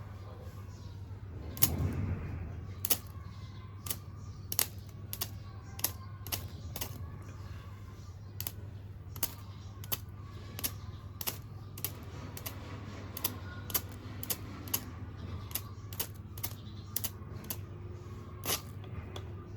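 Plastic buttons of a TV remote control being pressed one after another, a run of sharp irregular clicks, about one or two a second, with a heavier knock shortly after the start.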